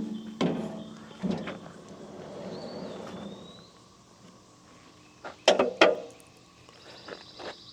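Sharp knocks and clatters of a tool being handled on a sawmill's metal bed, a couple near the start and a louder pair about five and a half seconds in, with rustling between and a faint high chirp about two and a half seconds in.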